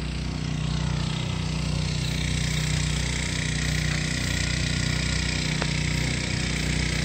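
Vehicle engine idling steadily with a low, even rumble.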